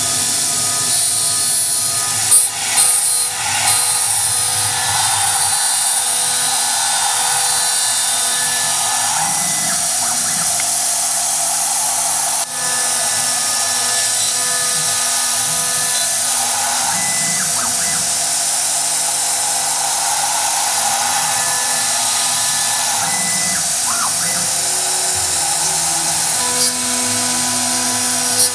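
2.2 kW CNC router spindle running steadily at high speed while cutting, with a steady whine and lower hums that change pitch in steps as the machine moves. A few sharp clicks about two to four seconds in and once near the middle.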